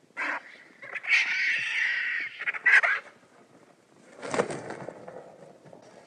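Imagined sound-effect calls for Qiupalong, an ornithomimid dinosaur: a series of bird-like calls, a short one at the start, a longer one about a second in, another short one near three seconds, and a lower, rougher call around four and a half seconds.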